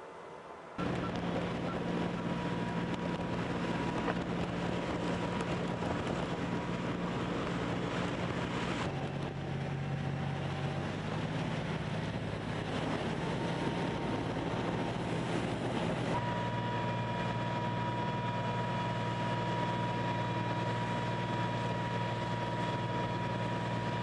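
A steady mechanical engine hum with wind and hiss over it. Its pitch and tone shift abruptly about 9 and 16 seconds in.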